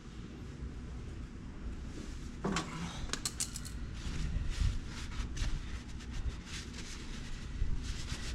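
Light metallic clicks and rattles of tools and parts being handled during a tractor oil change, coming thick and fast from about three seconds in. There is a brief low voice sound just before them.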